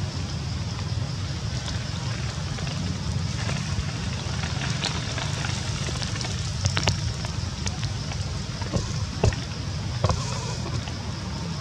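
Wind rumbling against the microphone, with scattered small clicks and ticks, a few sharper ones in the second half.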